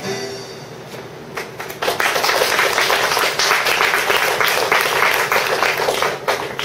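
Audience applauding, building up about two seconds in as the last of a held music note dies away.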